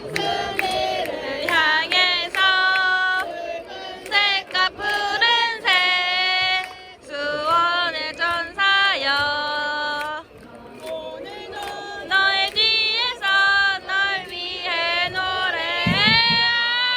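Singing voices chanting a melody in short repeated phrases, each note scooping up into a held pitch.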